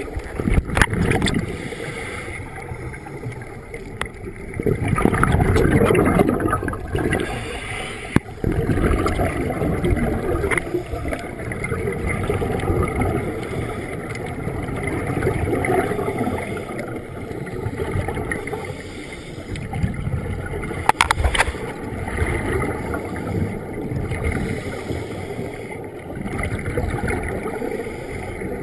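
Scuba regulator exhaust bubbles rumbling and gurgling, heard underwater through a camera housing. The sound swells and fades every few seconds with the diver's breaths, and there are a couple of sharp clicks.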